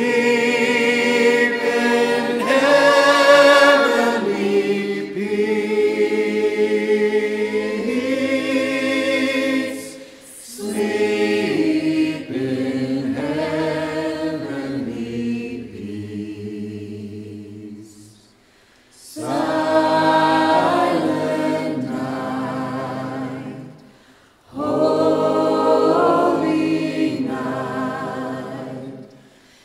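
A choir singing unaccompanied in long, slow phrases, with short breaks between phrases.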